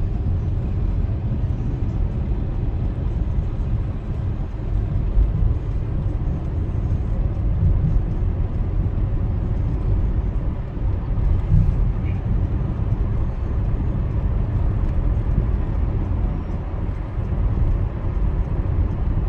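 Steady low rumble of a car being driven, heard from inside the car: engine and road noise with no sharp events.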